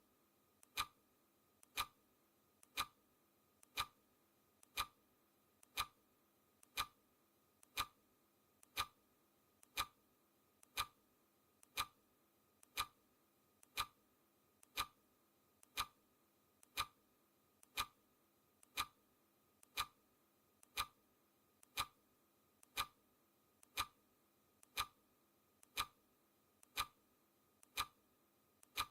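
Clock-ticking sound effect keeping time for a countdown timer, one sharp tick each second, each tick led by a fainter click.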